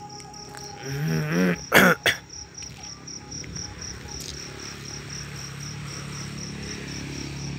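Crickets chirping steadily in a fast high pulse. A person coughs loudly about two seconds in.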